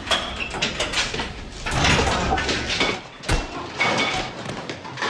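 Doors and metal fittings clattering and knocking, with one sharp bang a little over three seconds in.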